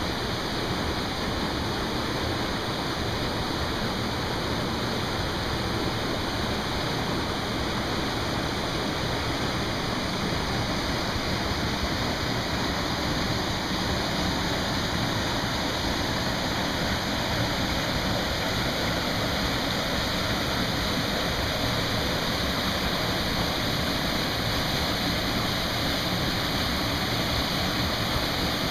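Steady rush of a mountain stream running over rocks and a small waterfall, an even roar of water that does not change.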